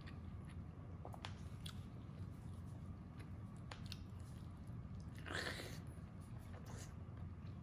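Close-up mouth sounds of a person chewing and biting braised pork meatball, with scattered soft clicks and one louder, longer mouth sound about five seconds in.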